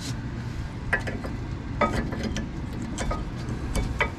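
Metal clinks and knocks as a brake caliper is worked back over new pads onto its bracket: several short knocks with a brief ring, about one a second, over a steady low background hum.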